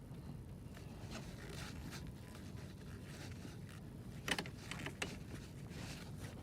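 Faint clicks and light handling noises from a screwdriver working loose the screws of a car's plastic interior trim, with a sharper click about four seconds in and another about a second later.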